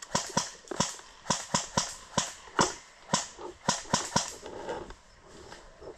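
Airsoft rifle firing a quick string of single shots, about a dozen sharp cracks at roughly three a second, which stop about four seconds in.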